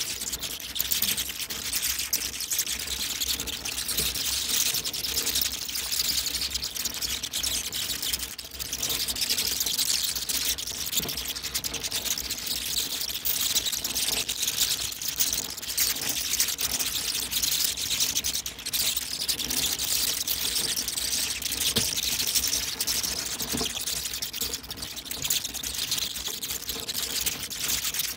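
A colony of bats screeching as they leave the roost: a dense, continuous, high-pitched chatter of overlapping squeaks and rapid clicks.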